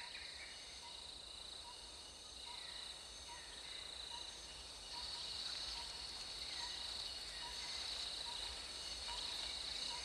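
Steady chorus of trilling insects, an even high-pitched drone, with a soft pip repeating under it less than a second apart and a faint falling chirp now and then.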